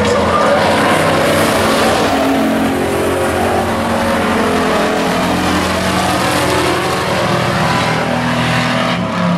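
Several stock pickup race trucks' engines running hard at racing speed, passing close by. Their pitches overlap and shift up and down as they work around the track.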